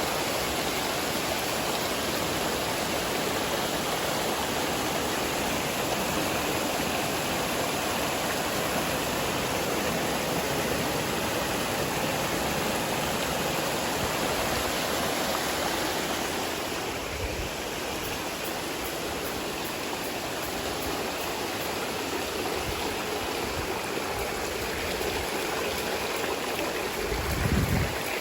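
Running water of a stream rushing steadily, easing slightly about two-thirds of the way through. A short low thump comes near the end.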